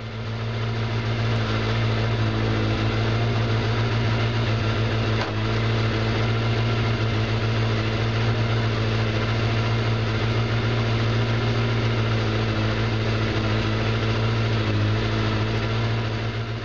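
1981 Kawasaki GPZ 550's air-cooled inline-four engine idling steadily with the clutch disengaged. There is a single brief click about five seconds in as first gear is engaged.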